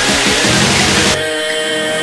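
Electronic background music with a steady beat and a noisy, dense texture that thins out abruptly about a second in.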